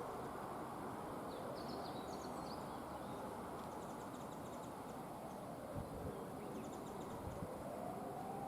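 Outdoor ambience: a steady low rumble with small birds chirping in short bursts several times. A faint tone slides down past the middle and rises back near the end.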